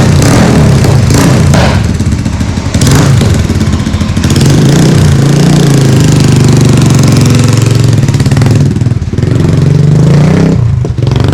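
Honda Grom's 125 cc single-cylinder engine running loud on a ride, its note shifting up and down with the throttle.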